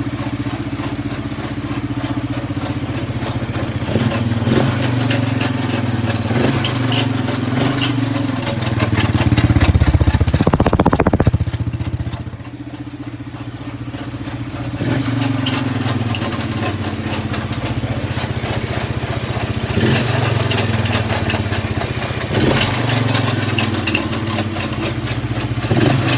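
ATV (four-wheeler) engine running at idle, revved up briefly about ten seconds in and settling back, with sharp knocks every few seconds; it is making a weird noise that the owner cannot identify.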